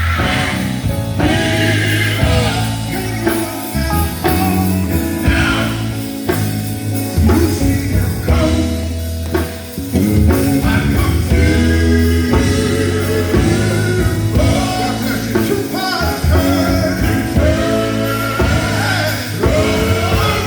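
Live gospel quartet-style singing: voices singing over a band with a steady, held bass line.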